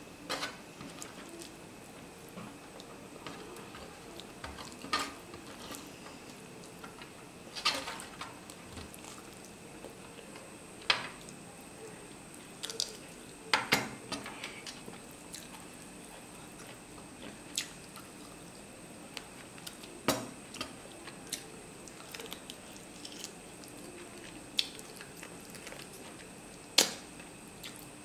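Eating by hand from a stainless steel plate: fingers mixing and scooping wet rice and mutton curry against the metal, with scattered sharp clicks and wet squishes every second or few.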